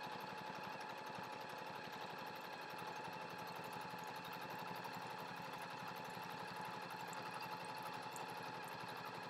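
Janome DC4030p computerized sewing machine running steadily, stitching through four layers of thick spongy vinyl, with a fast, even stitching rhythm over a constant motor tone.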